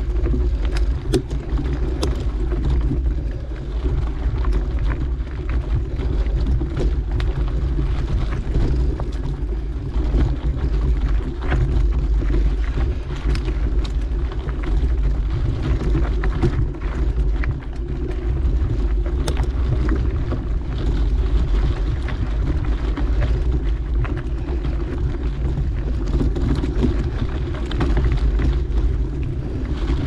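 Steady low rumble of a mountain bike riding a dirt trail: tyre roll and wind on the camera microphone, with scattered sharp clicks and rattles throughout.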